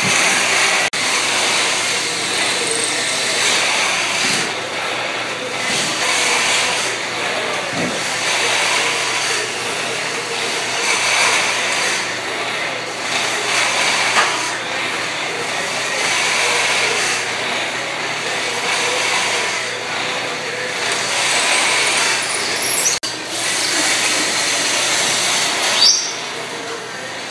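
Wood lathe running with a copying attachment's cutter working a spinning pine baluster blank: a dense, steady cutting hiss over the motor, swelling and easing as the cutter moves along the wood, with a sudden short break about 23 seconds in.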